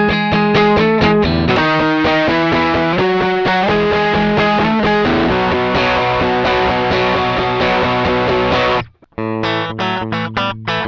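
Electric guitar, a 1988 American Standard Telecaster, played through the Midnight Drive pedal with a driven, distorted tone. It strums chords in a choppy rhythm, lets chords ring, and cuts off abruptly just before nine seconds in. After a short gap the choppy chords start again.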